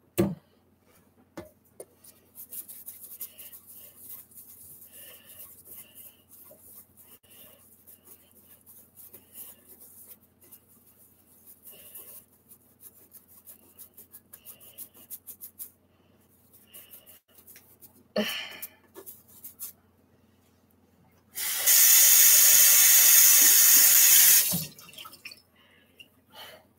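A toothbrush scrubbing the painted hair on a vinyl reborn doll head, a faint, fast scratching. Near the end, a kitchen tap runs for about three seconds into a stainless-steel sink as the head is rinsed.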